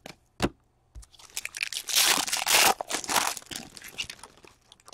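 Foil wrapper of an O-Pee-Chee Platinum hockey card pack being torn open and crinkled by hand, loudest about two seconds in. A single sharp click comes just before it.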